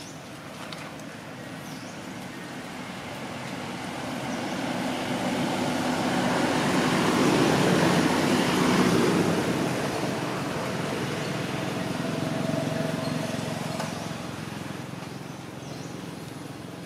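A motor vehicle passing by: its engine and tyre noise swells for several seconds, peaks around the middle, and fades away.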